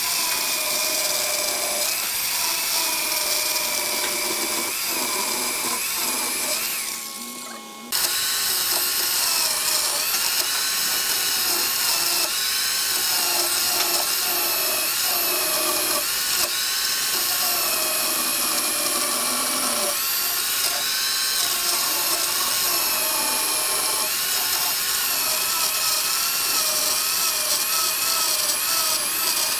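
Chainsaw cutting down through the curved edge of a very thick wooden slab, its whine wavering in pitch as the chain bites. It dies away for about a second near seven seconds in, then comes straight back up to speed and keeps cutting.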